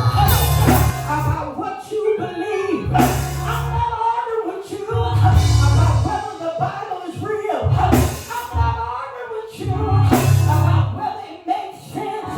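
Music with singing over long, deep bass notes that change about every two and a half seconds.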